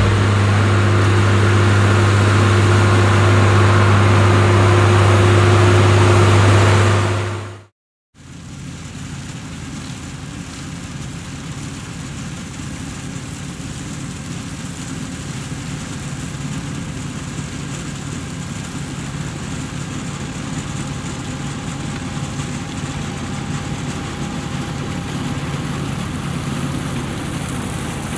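A held music chord ends, fading out about seven seconds in. After a moment of silence a New Holland tractor runs steadily while working a sugar-beet harvesting implement, its engine growing gradually louder as it comes closer.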